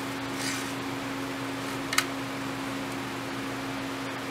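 Steady mechanical hum in the shop, with faint scratching of soapstone on a rusty steel circular saw blade as an outline is traced, and a single sharp click about two seconds in.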